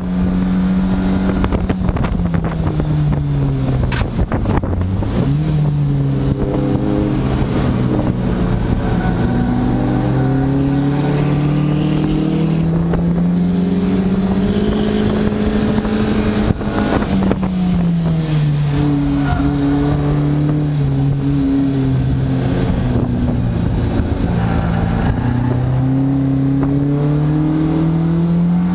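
A race car's engine heard from inside the cockpit on track. Its note drops twice, climbs slowly in between and climbs again near the end, over steady wind and road noise, with a couple of sharp knocks.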